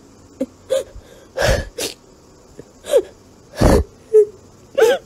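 A person's voice in about eight short bursts: some sharp, noisy blasts and some brief pitched exclamations that bend up and down.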